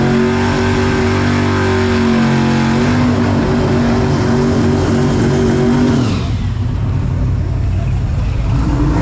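Drag race car's engine at full throttle down the strip, holding a high steady pitch with a step in pitch about three seconds in, then lifting off about six seconds in, the note falling away into a lower rumble.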